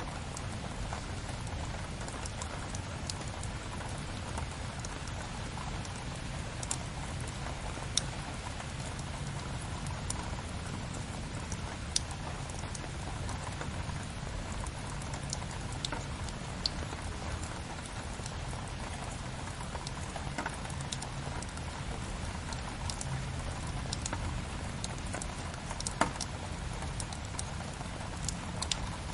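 Steady rain falling, with the scattered sharp pops and crackles of a wood fire burning in a fireplace.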